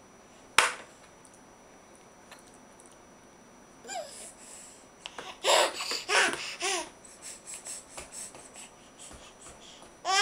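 A baby laughing and squealing in short bursts, mostly in the second half, after a single sharp knock about half a second in.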